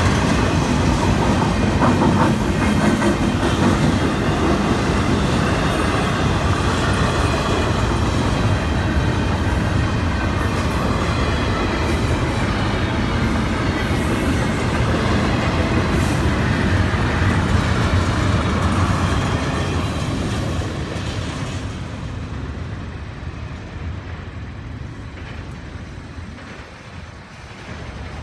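Freight train of double-stack intermodal well cars rolling over a grade crossing, wheels clacking on the rails in a steady run. About twenty seconds in, the sound fades away as the end of the train passes.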